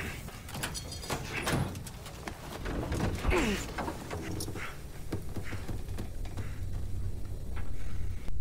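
Scattered knocks, clicks and scrapes from a wrecked aircraft's cockpit and canopy as the pilot struggles out, with a falling groan about three seconds in, over a low steady rumble that grows louder near the end.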